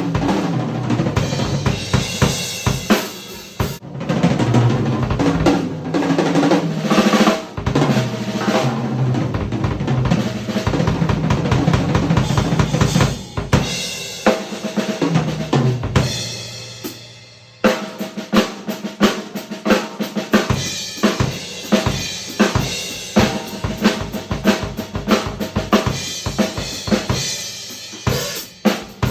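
Yamaha Recording Custom drum kit played solo: fast snare and tom rolls over bass drum and cymbals, with the toms ringing. About sixteen seconds in the playing dies away, then it starts again suddenly with crisp, evenly spaced hits.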